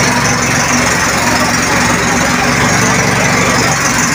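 Fire truck engine running steadily at a constant pitch to drive its water pump while the roof hose sprays, under a steady hiss.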